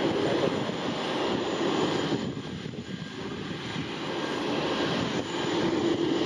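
Embraer Legacy 600 business jet on final approach, its twin rear-mounted Rolls-Royce AE3007 turbofans giving a steady jet roar. The roar dips for about a second a little after two seconds in, then builds again.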